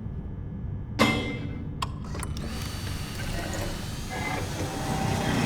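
Mechanical clicking and rattling, with a sharp knock about a second in and single clicks shortly after.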